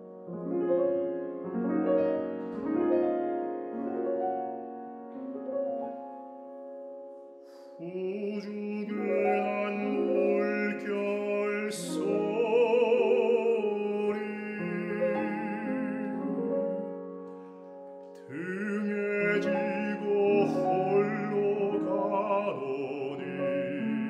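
Baritone singing a Korean art song with grand piano accompaniment. The piano plays alone at first; the voice enters about a third of the way in, singing with vibrato, breaks off briefly about two-thirds of the way through, then comes back in.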